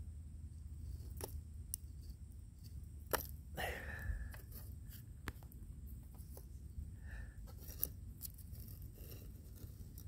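Scattered clicks, scrapes and crunches of charred wood and crumbly casting sand being handled on a board, the sharpest about three and four seconds in, over a low steady rumble.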